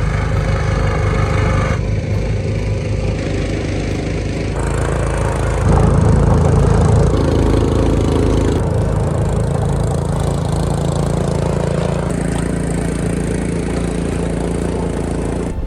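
An engine running steadily, its sound changing abruptly a few times as if across several cut-together clips.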